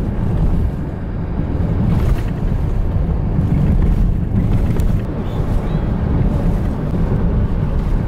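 Steady low rumble of road and wind noise heard from inside a car cruising along a highway.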